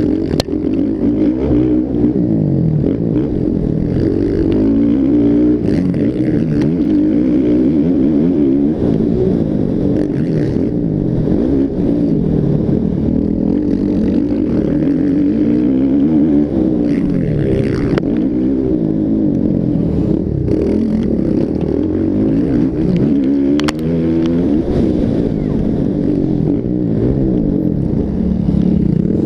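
Motocross bike engines revving and easing off continuously, their pitch rising and falling with throttle and gear changes as the bikes race around the track.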